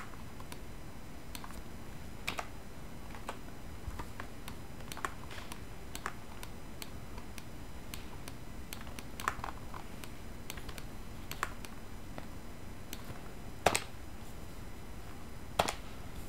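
Scattered, irregular clicks of a computer keyboard and mouse being operated, about a dozen over the stretch, the sharpest near the end, over a steady background hiss.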